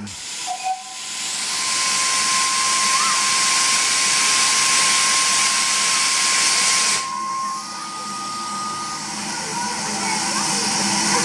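Steam locomotive venting steam: a steady loud hiss with a thin whistling tone in it, which drops off suddenly about seven seconds in, leaving a quieter hiss.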